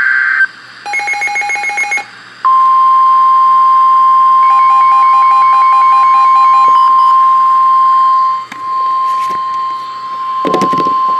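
NOAA Weather Radio warning alarm: the steady 1050 Hz attention tone held for about nine seconds, which signals that a warning message follows. Before it comes a short beep and a run of rapid pulsed electronic beeps, and more pulsed beeps overlap the tone for about two seconds. A few clicks and a loud crackle sound near the end.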